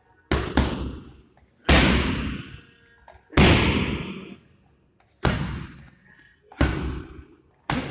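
Strikes slamming into leather Thai pads held by a trainer, about six or seven heavy smacks spaced a second or two apart, two of them in quick succession near the start. Each hit rings on in the echo of a large, hard-walled hall.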